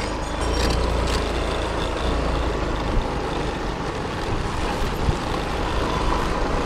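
A motor scooter being ridden along a road: a steady rumble of its engine, mixed with wind and road noise on the microphone.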